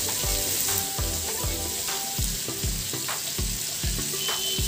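Marinated chicken pieces sizzling in butter and oil in a non-stick frying pan over medium heat, with a wooden spatula shifting the pieces now and then. Background music with a steady low beat plays along.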